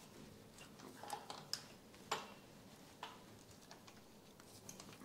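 Faint, irregular light clicks and ticks of metal as a brushed nickel shower arm is turned and threaded into the wall fitting with a hand tool.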